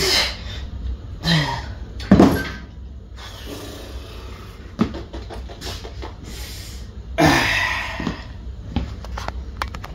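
Iron weight plates on a cable pulley loading pin clanking down about two seconds in, with a few more knocks and handling noises from the cable machine.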